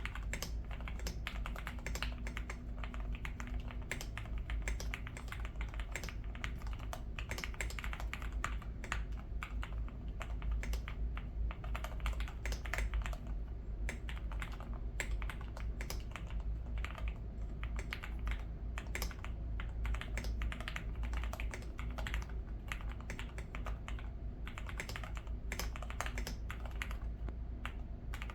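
Continuous typing on an MK870 mechanical keyboard with Cherry Nixie switches and Violet Alert keycaps, dampened with silicone plate foam, EVA foam, two layers of tape and O-ring gasket strips: a steady, dense run of keystrokes.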